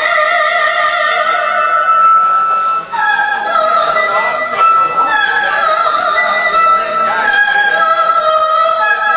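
A woman singing solo into a microphone over instrumental accompaniment, holding long notes with vibrato.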